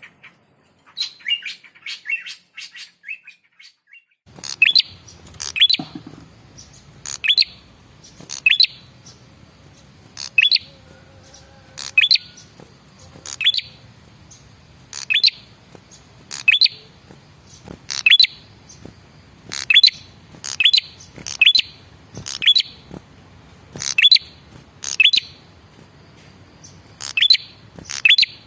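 Male prenjak kepala merah calling, a few soft chirps first, then from about four seconds in a loud, sharp, high call repeated about every second and a half, often doubled. It is the male's call used as a lure to draw a reply from other birds.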